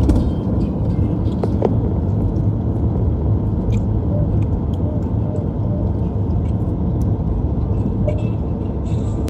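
Steady low rumble of a moving vehicle, with faint scattered ticks, cutting off suddenly at the end.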